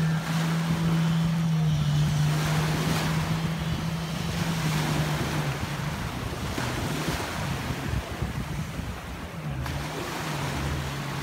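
Jet ski engine running at a steady high drone as the craft speeds away, slowly fading, its pitch wavering near the end. Surf and wind noise on the microphone run underneath.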